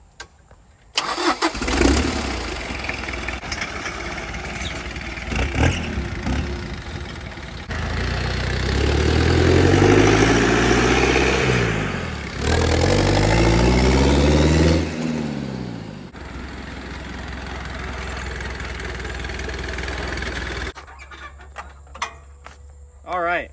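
2.2-litre turbo diesel engine from a 1983 Ford Ranger starting about a second in, once its glow plugs have warmed, then running as the picnic-table kart drives off. The engine revs up and back down twice in the middle, settles to a steady run, and cuts off abruptly near the end.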